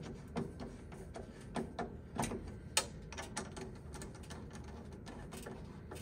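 Scattered light clicks and taps of hands fitting and tightening the clamp on the coupling of a gas boiler's air intake pipe, a few sharp ticks spaced irregularly over a faint steady background.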